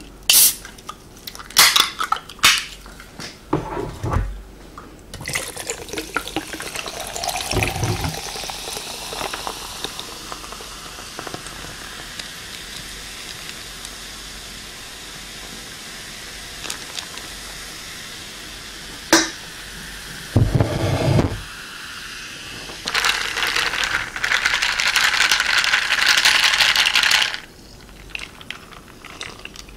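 Cola from a Coca-Cola can poured over ice into a glass mug, fizzing with a long steady hiss. A few sharp clicks of the can come at the start, a knock comes about two-thirds in, and a louder rush of pouring comes near the end.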